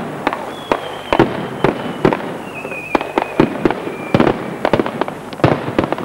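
Mascletà firecrackers going off at ground level: sharp bangs a few times a second at an irregular pace, with a thin whistle sounding through the middle.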